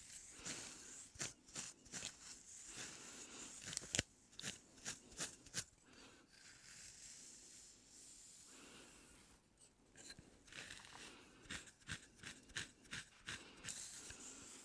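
Wooden comb drawn through hair close to the microphone: a run of short, irregular scratchy strokes, easing into a softer, steadier rustle about halfway through before the strokes pick up again.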